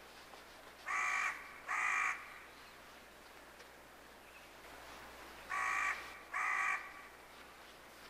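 A crow cawing four times: two short caws about a second in, then two more about five and a half seconds in.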